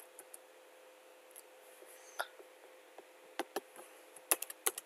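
Scattered sharp clicks of someone working a computer: a single click about two seconds in, then a quick cluster of clicks near the end, over a faint steady hum.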